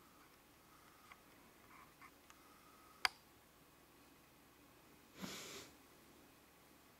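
Faint taps of fingertips on a smartphone touchscreen, with a single sharp click about three seconds in and a half-second rush of noise about five seconds in.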